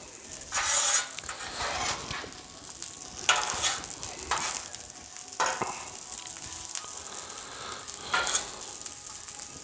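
Fried rice sizzling on a Blackstone flat-top griddle while it is scraped and turned with a spatula, about four louder scraping strokes standing out over the steady frying hiss.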